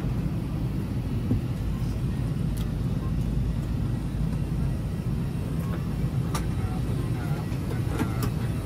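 Steady low rumble of an Airbus A320's cabin at the gate, the air-conditioning and aircraft systems running, with a few sharp clicks and knocks from passengers moving down the aisle and faint voices.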